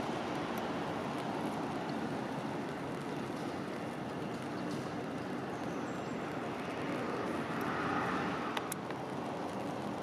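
Steady rushing outdoor background noise that swells a little near the end, with two sharp ticks shortly after.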